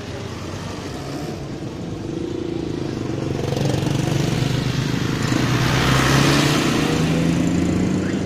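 Auto-rickshaw engines and other road traffic running as rickshaws pass close by. The engine drone grows louder to a peak about six seconds in.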